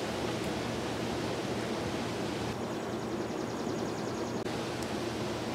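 Steady hum of honeybees around an open top-bar hive, mixed with an even outdoor hiss.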